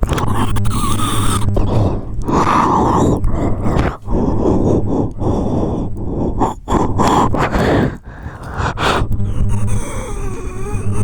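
A person's voice imitating an animal: a run of rough growls, grunts and breathy gasps with short breaks between them, ending in a wavering, pitched whine.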